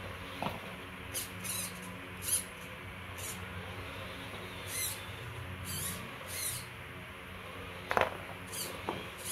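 Homemade all-metal RC tractor chassis crawling over a loose wheel: its gear motors hum steadily, with short high-pitched squeaks about every second and a sharp knock about eight seconds in.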